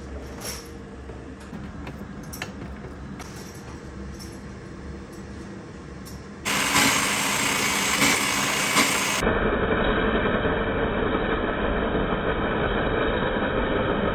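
Bosch bench drill press running as it drills into a charged LiFePO4 32700 cell, with a few clicks early on. About six and a half seconds in, the machine noise jumps suddenly and stays loud and steady.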